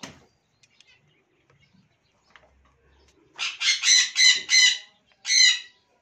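Parrot screeching: after a quiet stretch with faint rustles, a quick run of about five loud, harsh calls a little past halfway, then one more call.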